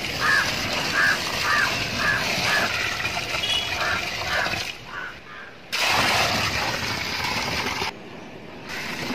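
Water poured from a bucket splashing into a dug soil pit, a steady pour, as a percolation test of the soil. A bird calls repeatedly over the first half, about two to three calls a second, and the pouring sound breaks off abruptly about eight seconds in.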